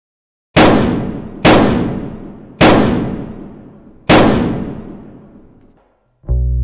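Four gunshots, at gaps growing from about one second to a second and a half, each fading out in a long echoing tail. Guitar music starts right at the end.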